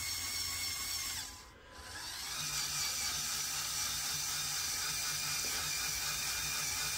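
Lego Technic crawler crane's electric Control+ motor and gear train driving its tracks, a steady geared whine. It stops briefly about a second and a half in and starts again as the crane changes direction.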